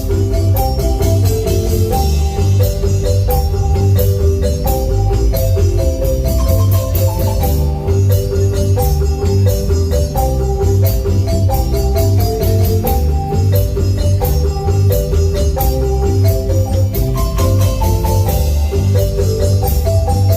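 A marimba band playing a steady up-tempo piece: quick melodic marimba notes over a strong bass line, with rapid percussion ticks keeping the beat.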